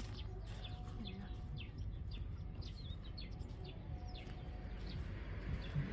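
Wild birds chirping, many short calls repeating one after another, over a steady low background rumble.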